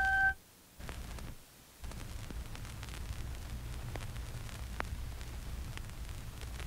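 Tape hiss and a low hum from a Sony high-bias (Type II) cassette playing back a blank stretch between recordings taped off the radio. A held tone cuts off just after the start, the sound drops out almost completely twice in the first two seconds, and a few faint clicks come through the hiss.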